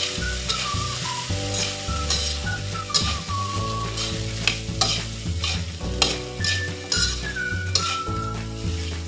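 Metal spatula scraping and turning fried rice in a steel wok, a scrape every second or so over the sizzle of frying.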